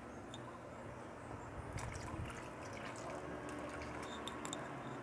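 Thick soup simmering in a pot, with soft bubbling and small pops of bursting bubbles.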